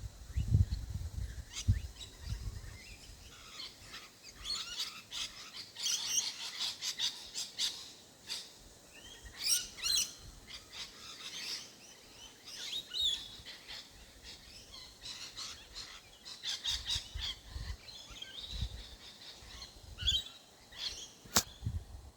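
Wild rosellas calling: bursts of short, chattering chirps, busiest in the middle. Low rumbling comes in near the start and again late on.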